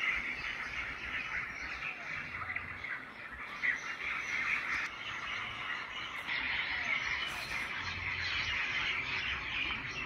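A dense, steady chorus of many small animals chirping together, with no single call standing out.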